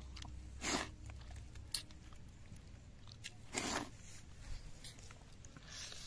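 Close-up eating sounds of a person eating rice and fish curry by hand: chewing and wet mouth smacks, with two short louder noisy sounds, about a second in and about two thirds of the way through, and a few sharp clicks.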